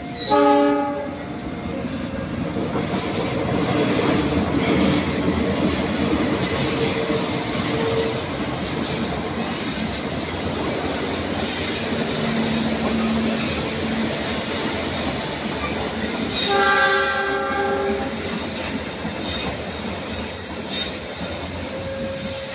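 Diesel-hauled passenger train passing close by, its wheels running over the rails in a steady rumble. The locomotive's horn sounds a short blast right at the start and a longer blast of about a second and a half a little past two-thirds of the way through.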